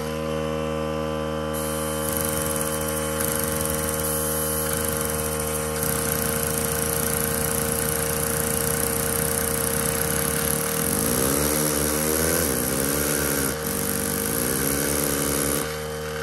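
Small Lego pneumatic engine running fast on compressed air with a steady buzzing hum. From about 11 s in, a wavering tone drops and rises in pitch several times as the engine is coupled to a load it lacks the torque to drive well.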